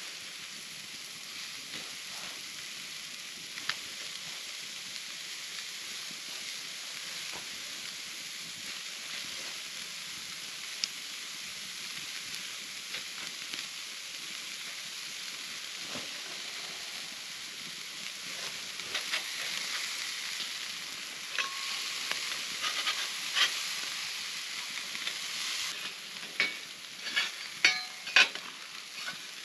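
Meat patties sizzling on a metal grill grate over a campfire, a steady hiss with scattered crackles and pops from the fire. Near the end a metal spatula clacks and scrapes against the grate several times as the patties are turned.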